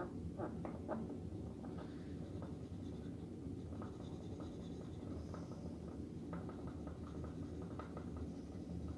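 Pink marker rubbing on a whiteboard in many short, irregular strokes, colouring in a small block of a diagram.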